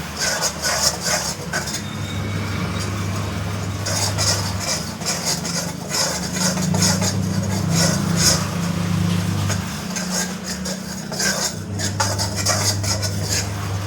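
A spatula scraping and stirring besan and semolina roasting in ghee in a metal pan, in irregular strokes. Under it runs a steady low hum that drops out now and then.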